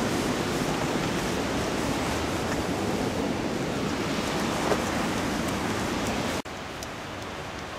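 Steady rush of river water, which drops abruptly to a quieter rush about six seconds in.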